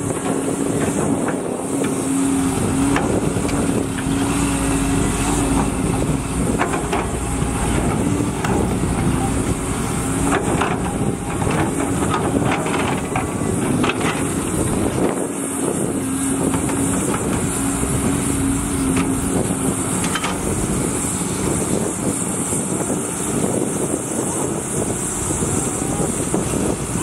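Diesel engine of a loaded 12-wheel dump truck running as it manoeuvres slowly, a steady drone with a hum that fades in and out.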